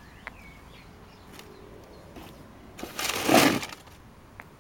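A gritty scrape lasting about a second, about three seconds in: a resin orgonite puck sliding over rough paving stone.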